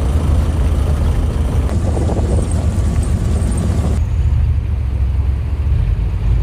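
Strong wind buffeting the microphone: a heavy, steady low rumble with a rushing hiss over it. The sound changes abruptly about four seconds in, the hiss dropping away while the rumble goes on.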